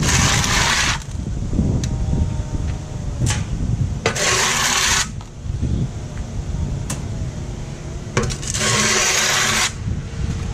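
Transfer shovel blade scraped along the driveway three times, picking up the loose leftover debris. Each harsh scrape lasts about a second. A few sharp clicks fall between strokes, with low wind rumble on the microphone.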